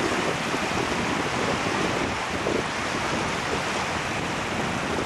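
Wind buffeting the microphone over waves washing onto the lakeshore, a steady rushing noise.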